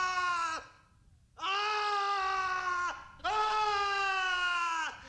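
A man screaming in terror: long, high screams one after another, each held steady and then falling away, with short breaks for breath. This is a horrified scream of shock.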